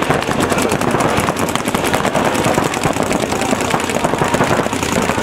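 Paintball markers firing rapidly, many shots overlapping in a dense, unbroken stream of pops.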